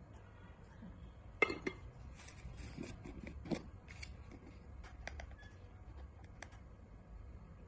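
Light clicks and knocks of a plastic measuring spoon against a glass bowl as chilli powder is tipped in. The two loudest taps come about a second and a half in, with more scattered small ticks later.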